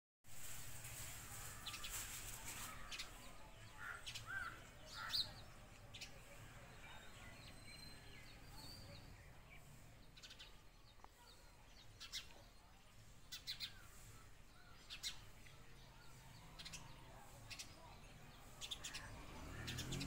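Male house sparrow chirping: short, sharp chirps in scattered clusters every few seconds, over a faint low background rumble.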